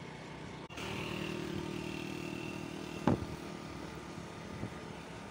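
Motorcycle engine running at a steady speed while riding, with one short thump about three seconds in.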